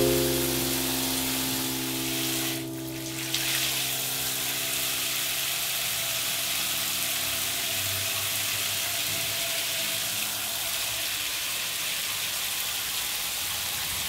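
A sustained musical chord fades out over the first couple of seconds. Then a shower runs steadily, with an even hiss of spraying water.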